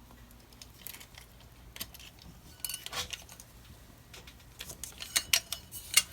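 Small metallic clicks and clinks as a metal cable clamp connector is handled and fitted into a knockout hole of a recessed light's junction box. The clicks come sparsely at first and grow more frequent in the second half.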